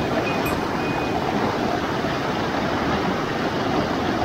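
Mountain stream water rushing over rocks: a steady, even hiss of flowing water.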